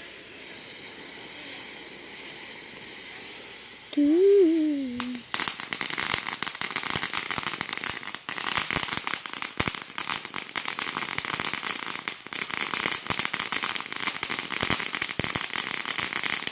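Fireworks crackling: a dense run of rapid small pops that starts about five seconds in and keeps going steadily.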